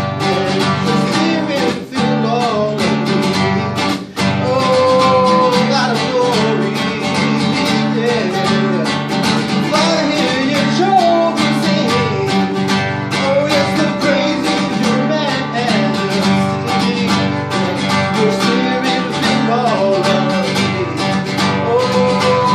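Classical-style acoustic guitar strummed steadily, with a man singing a slow melody over it; the strumming breaks off briefly about two and four seconds in.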